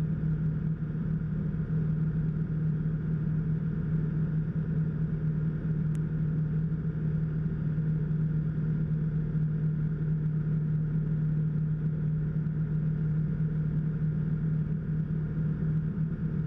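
A Rotax 912 flat-four engine and propeller on a Sirius TL-3000 light sport aircraft, droning steadily in cruise flight, heard inside the cockpit. It is a constant low hum that holds one pitch, with no changes in power.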